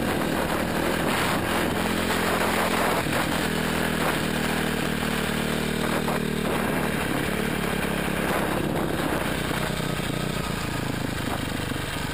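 Motorcycle engine running hard at speed, heard from the rider's helmet camera, with wind noise rushing over the microphone. The revs hold fairly steady and ease off slightly near the end.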